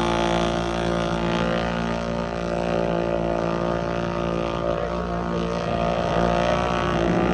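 Off-road vehicle engine running at a steady speed, holding an even pitch throughout.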